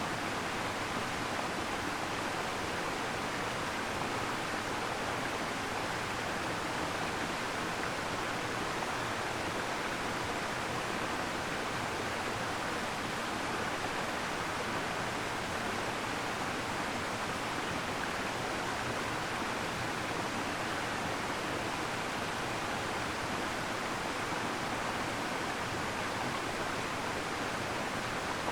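Waterfall: water pouring down in a steady, unbroken rush with no pauses or separate splashes.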